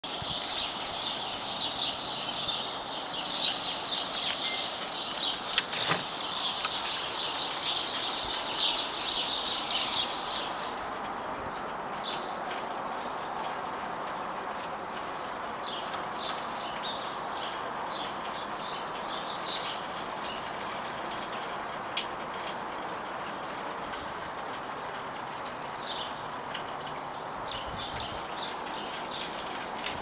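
A flock of small birds chirping: a dense, continuous chorus of high chirps for about the first ten seconds, then scattered chirps, over a steady background hiss.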